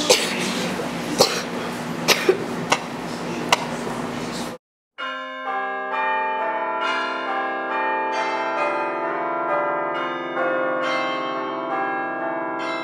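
A few seconds of noisy room sound with several sharp clicks and a steady low hum, then an abrupt cut to silence, and after it a music cue of overlapping, sustained ringing notes, several at a time, running on.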